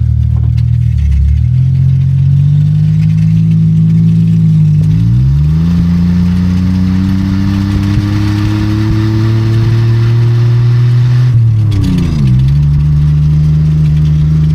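Car engine with its exhaust mostly cut off, running loud under acceleration. Its pitch climbs, falls at a gear change about five seconds in, climbs again, falls at a second upshift near the end, then holds steady.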